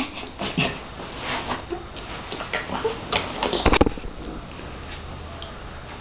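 Short scattered giggles and squeaky vocal noises, then a cluster of sharp knocks about three and a half seconds in as fingers handle the camera, followed by low room tone.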